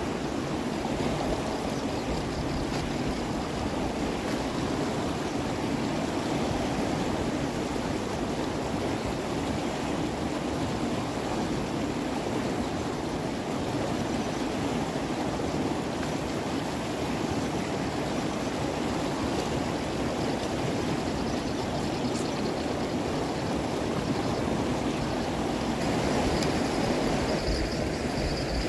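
Steady rush of flowing water, an even, unbroken noise. A faint high-pitched thin sound joins near the end.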